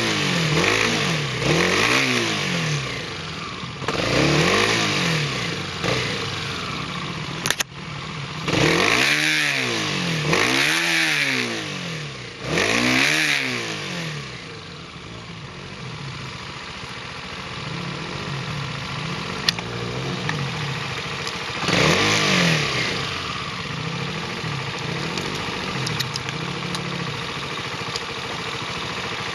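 Motorcycle engine revved up and down over and over, in strong bursts about a third of the way in and again later, settling to a steady idle between the bursts and at the end. A single sharp click comes about a quarter of the way in.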